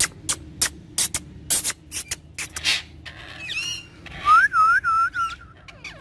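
Ringneck parakeet clicking sharply again and again, then whistling: a short gliding whistle about three and a half seconds in, and a second later a rising whistle that breaks into four quick dipping notes.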